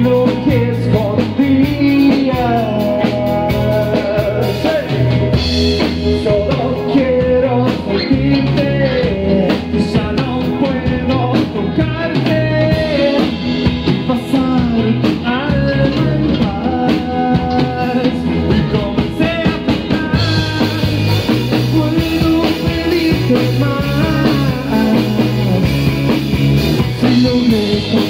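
Live rock band playing: electric guitar, bass guitar and drum kit, with a sung lead vocal.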